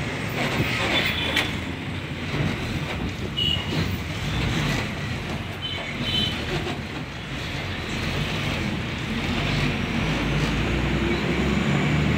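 Road vehicle running, heard from on board as it travels: a steady rumble with road and wind noise that grows louder toward the end. Two brief high-pitched notes sound about three and a half and six seconds in.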